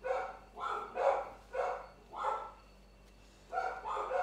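Pet dogs barking repeatedly: about five barks in quick succession, a pause of about a second, then more barks near the end. They are barking at a dog being walked past the driveway.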